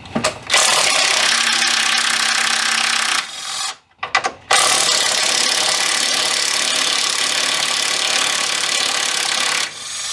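Cordless impact gun running on the 12 mm strut-top mount bolts, in two long runs of about two and a half and five seconds, with a brief pause and a few clicks between.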